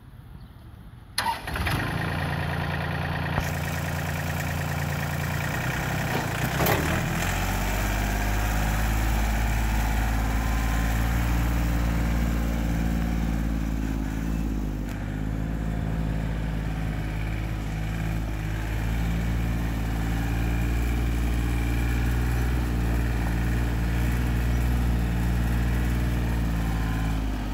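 John Deere 790 compact tractor's three-cylinder diesel engine starting about a second in and idling, then throttled up about six to seven seconds in and running steadily as the tractor drives.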